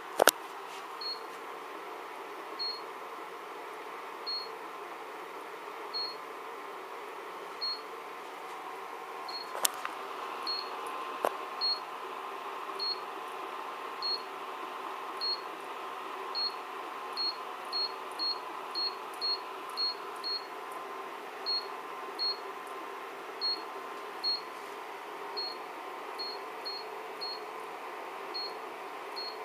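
Induction cooker beeping: short high beeps repeating every half second to second and a half while its display shows error code E0, over a steady hum. A sharp click near the start is the loudest sound, with two smaller clicks about ten seconds in.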